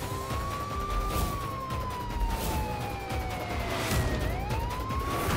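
Police car siren wailing in a slow cycle: a short rise, a long fall in pitch over about three seconds, then a rise again near the end.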